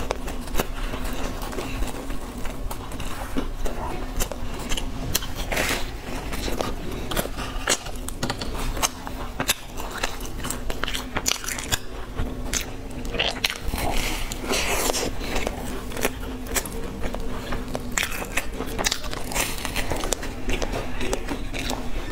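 Biting into and chewing a crusty, chocolate-filled bread loaf, picked up close by a clip-on mic: the crust crackles and crunches in quick irregular clicks, with wet mouth sounds over a steady low hum.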